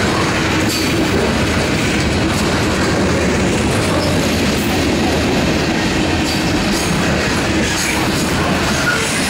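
Freight train's tank cars and boxcars rolling past close by, steel wheels clacking over the rail joints in a loud, steady rumble.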